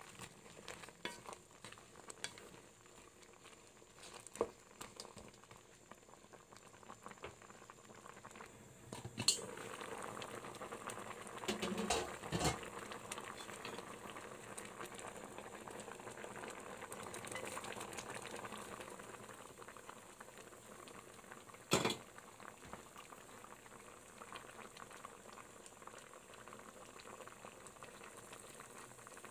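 Shrimp in coconut milk boiling in a wok, a steady bubbling simmer, with a few sharp knocks over it, the loudest about two-thirds of the way through.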